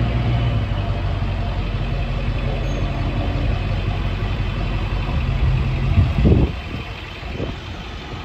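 A vehicle engine idling steadily, mixed with wind buffeting the microphone. The low rumble eases off about six seconds in.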